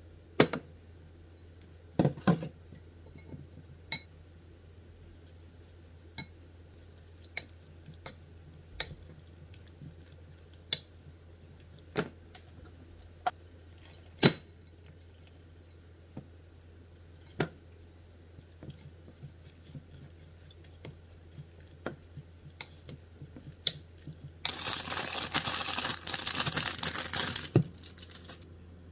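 Kitchen prep sounds: scattered single knocks and clinks of utensils and a glass mixing bowl, a few seconds apart. Near the end comes a loud, steady hissing noise lasting about three seconds.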